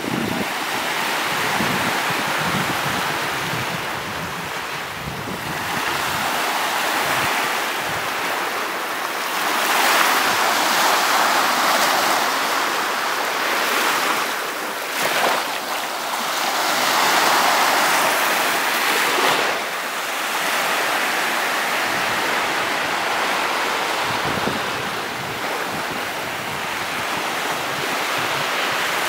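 Small waves breaking and washing up a sandy beach, the wash swelling and easing every few seconds as each wave runs in and drains back, with some wind buffeting the microphone.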